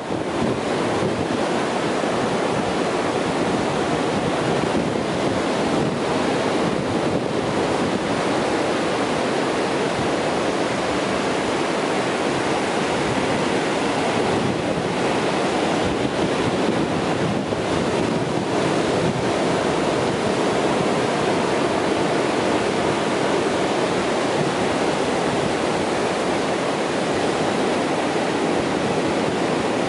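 Ocean surf breaking close by and washing up the sand: a steady, continuous rush of water.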